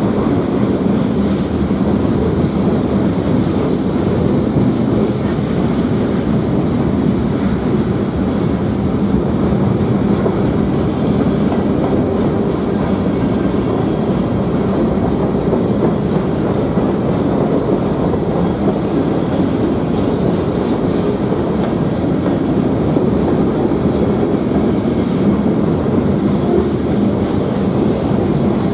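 BNSF freight train's cars rolling past: a loud, steady rumble of steel wheels on the rails.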